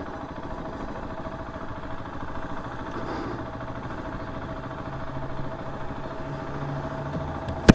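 KTM 690 SMC R's single-cylinder engine running at steady, low revs. A sharp click just before the end.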